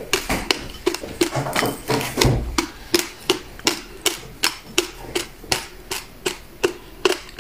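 Close-up crunching as passion fruit seeds are chewed, a sharp crisp crunch about three times a second in an even rhythm. A louder low rumble comes about two seconds in.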